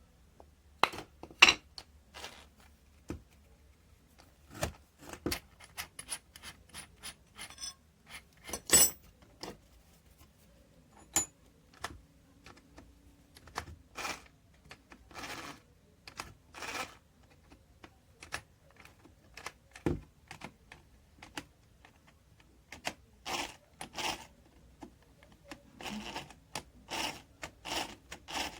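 Irregular clinks, taps and short scrapes of small hand tools and metal parts being handled, with no drill motor running.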